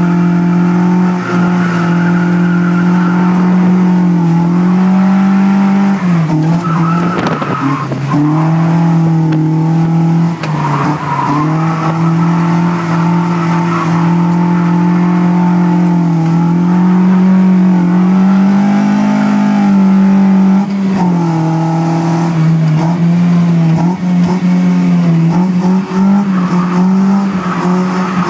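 Toyota BEAMS 3S-GE four-cylinder engine of an AE86 drift car, heard from inside the cabin, held high in the revs, its pitch dropping and recovering around 7 and 11 seconds in. Tyres squeal as the car slides through the corners.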